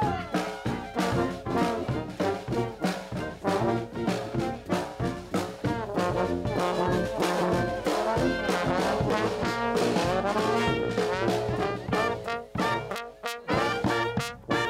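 Marching brass band playing a lively tune: trombones and sousaphone over a steady bass drum beat.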